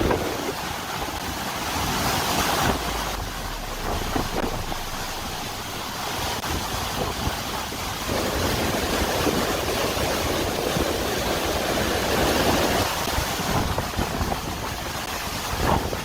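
Steady rushing noise of wind and water, with wind buffeting the microphone; the mix shifts about three seconds in and again near the end.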